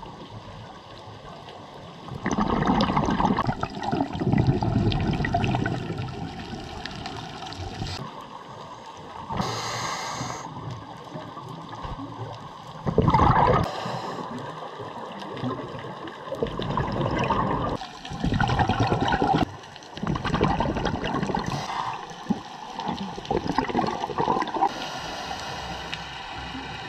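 Scuba diver breathing through a regulator underwater: loud bubbling, gurgling bursts from each exhale through the exhaust valve, one every few seconds, with quieter stretches between.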